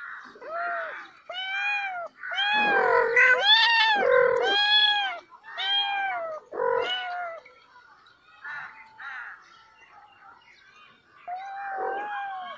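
Kittens meowing: a quick run of high, arching mews, several overlapping one another, then a lull and one more mew near the end.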